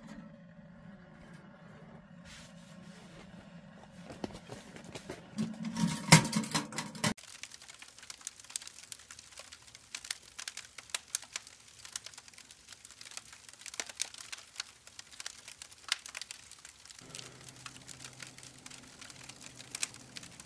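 Wood fire crackling inside a small metal tent stove, with scattered sharp pops and snaps. About six seconds in there is a louder burst of noise, and a low steady hum comes in near the end.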